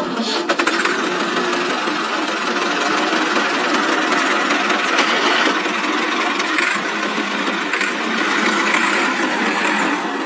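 Small battery-powered electric motor and plastic gearing of a toy tractor running steadily, a continuous whirring rattle with no deep engine note.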